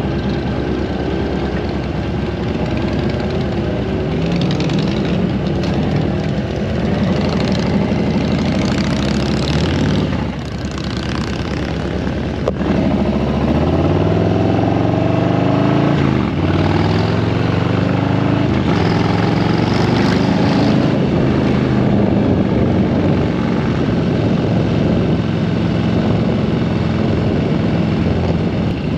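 A motorcycle's engine heard from on board, pulling away and accelerating through the gears: its note climbs in several pulls, dropping at each shift, then runs steadier at cruising speed near the end.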